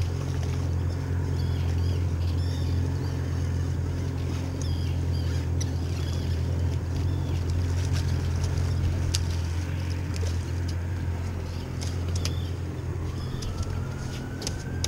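Boat's outboard motor idling steadily as a low hum, with scattered sharp clicks and a few faint high chirps over it. Near the end a faint tone rises in pitch.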